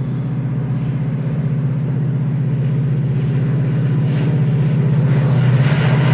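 Diesel locomotive hauling a container freight train, its engine running with a steady low drone that grows louder as it draws near and passes, with a rising hiss joining in over the last couple of seconds.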